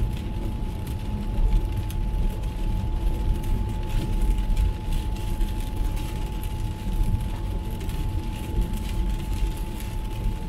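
Steady tyre and road noise from inside an MG ZS EV electric car driving on a wet road in heavy rain, with rain on the car. A thin, steady high tone runs underneath.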